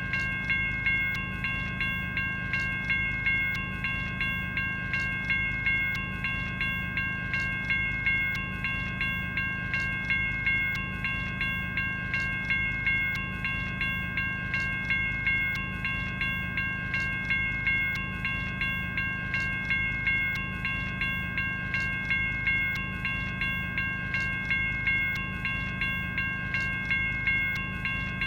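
General Signals Type 1 electronic railroad crossing bell ringing continuously: an even train of electronic bell strikes, about one a second, each leaving a ringing chord of several high tones that carries over into the next strike.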